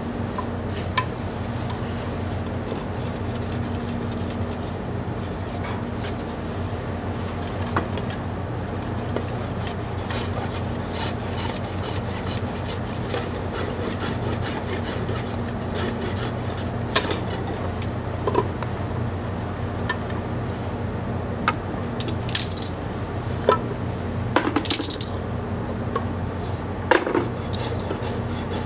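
Hand-tool work on the wooden step of a ship's rope embarkation ladder: a hacksaw rubbing and sawing at the step, with sharp knocks and clicks in the second half. A steady low hum of ship's machinery runs underneath.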